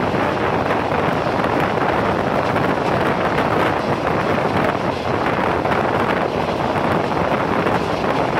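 Steady rush of wind and wheel-on-rail rolling noise from a passenger train running at speed, heard from a window or door with wind buffeting the microphone.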